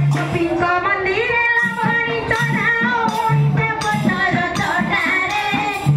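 Devotional folk singing: a voice sings a melodic, ornamented line over rhythmic percussion accompaniment.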